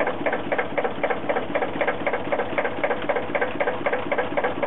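Tractor-driven sickle bar mower running: the reciprocating knife clatters back and forth in its guards in an even rhythm of about five strokes a second, with the Fendt Farmer 1 tractor's engine running underneath.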